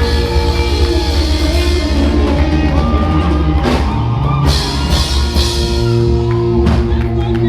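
Band music with a drum kit, cymbal hits and held low bass notes.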